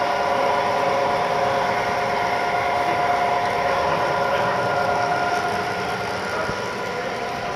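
O scale model freight train rolling past on the layout track: a steady rumble of wheels on rails with a steady hum over it, easing off a little near the end.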